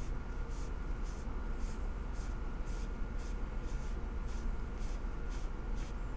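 Rhythmic hand-rubbing strokes on the old screwdriver being restored, a short scratchy hiss about twice a second, like sanding or polishing by hand, over a steady low hum.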